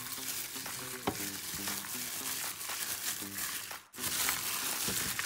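Plastic food-prep glove crinkling with wet squishing as a hand kneads sliced pork in its marinade in a bowl. The sound breaks off for an instant just before four seconds in.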